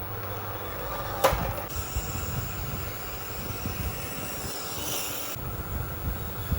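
Small electric motors and gearboxes of radio-controlled model vehicles running with a steady whine, a higher whine joining for a few seconds. A sharp knock about a second in.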